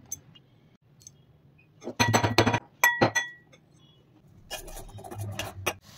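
Steel pestle pounding whole spices in a stainless steel mortar, metal striking metal in quick clinks. Two loud clusters of strikes come about two seconds in, one leaving a short ringing tone, then a longer, quieter run of pounding near the end.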